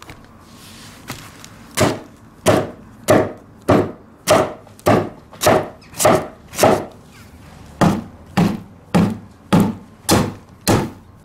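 A small hammer striking a timber floorboard, knocking it sideways to close it up tight against the wall. The blows come steadily, about one every 0.6 seconds, starting about two seconds in, with a short pause a little past the middle.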